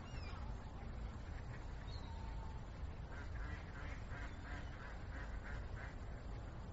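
A quick run of short squeaks, about four a second, starting about three seconds in and lasting a few seconds, as gloved fingers work a hollow aluminium cover onto the mouth of a plastic ink bottle. A steady low hum lies underneath.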